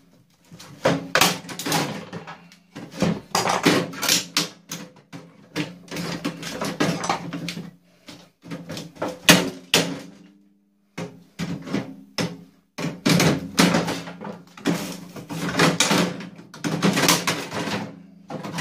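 Hand tools prying at and knocking on a microwave oven's sheet-metal casing and internal parts: repeated bursts of metal clattering and rattling, with short pauses between them.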